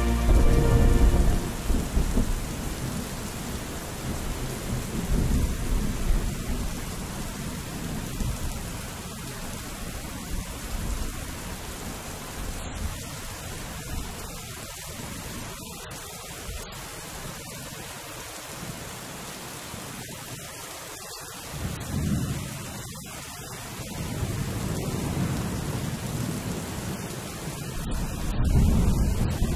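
Steady rain with low rolls of thunder that swell several times, the loudest near the end.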